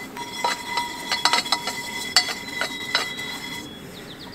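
Dishes and cutlery clattering as they are handled, about a dozen sharp metallic clinks with a ringing tone that fades out about three and a half seconds in.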